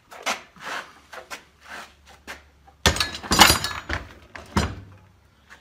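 The rusted cylinder head of a Dodge 230 flathead six being handled and set down: light scraping and clicks, then about three seconds in a cluster of loud metal clanks and thunks lasting under two seconds.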